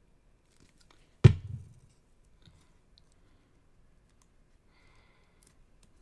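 One sharp knock on the desk about a second in, followed by faint clicks and light paper handling as hands fold and fit the pieces of a paper pop-up card.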